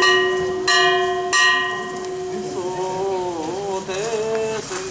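A small bell or gong is struck twice and rings on with a clear, lingering tone. About halfway through, a man's voice begins a long, wavering chanted note, the start of a nenbutsu dance song.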